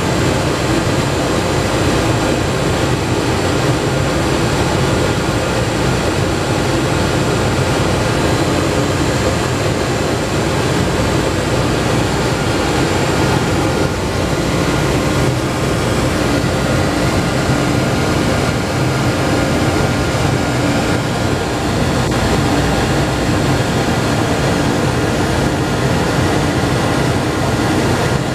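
Ship's boiler-room machinery running: a loud, unchanging drone with a few faint steady whines in it.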